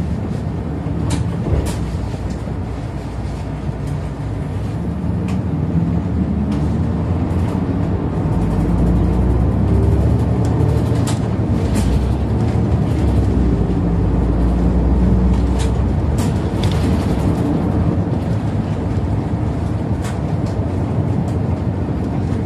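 Inside a city route bus on the move: engine and road noise, with scattered sharp clicks and rattles. The engine's low rumble grows louder about a third of the way in and eases off again later.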